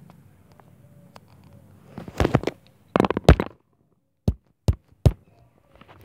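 Knocks and rubbing from a phone being handled as the recording is stopped: faint room tone, then a cluster of knocks about two seconds in and a louder cluster about three seconds in, followed by three sharp taps less than half a second apart.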